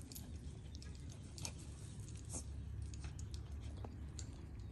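Faint outdoor ambience: a steady low rumble with scattered soft crackles and scuffs.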